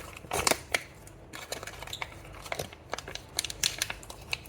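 Sealed plastic fidget package being worked at by hand to open it, the wrapper crinkling in a run of sharp crackles and clicks, loudest about half a second in.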